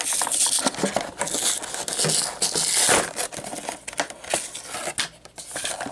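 Stiff clear plastic blister pack crinkling and crackling with many sharp clicks as it is pried and peeled off its cardboard backing card by hand.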